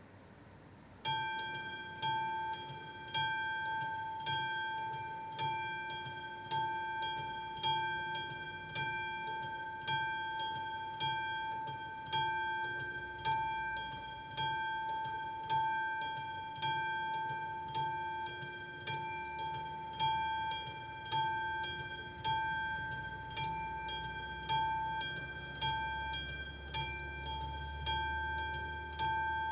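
Level crossing warning bell starting about a second in and ringing in regular strokes, a little over one a second, each stroke a bright pitched ring that fades before the next: the crossing has activated for an approaching train. A faint low rumble builds near the end.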